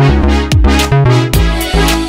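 Background music: an electronic track with deep bass and a steady drum beat.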